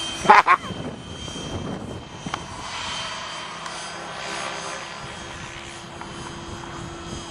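Swift 16 electric radio-controlled helicopter with 550 mm blades in flight: a steady motor whine under a rotor whoosh that swells and fades as it manoeuvres. A short shout comes about half a second in.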